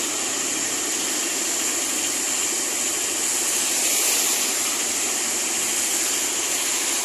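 Steady hiss of rain and traffic on a wet road, with no pitched engine note standing out.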